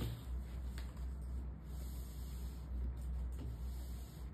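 Background room noise: a steady low hum under a faint hiss, with a few soft clicks.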